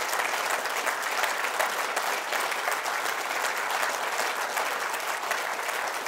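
Audience applauding: many people clapping at once, at a steady level.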